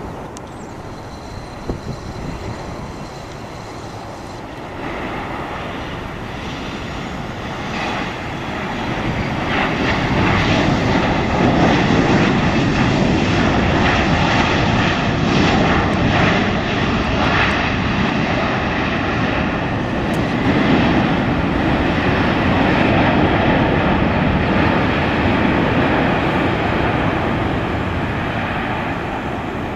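Boeing 737-800's CFM56 turbofans landing: a steady jet noise with a thin high whine as it comes over the runway. About eight to ten seconds in, the noise swells into a loud rushing roar of reverse thrust that holds for about fifteen seconds, then eases as the jet slows on the rollout.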